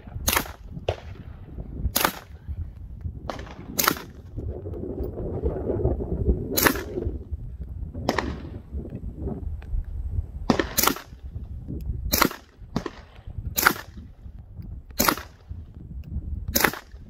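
CZ Scorpion Evo 3 9mm carbine with an integral suppressor firing single shots at a slow, uneven pace, about a dozen in all, over a steady low rumble.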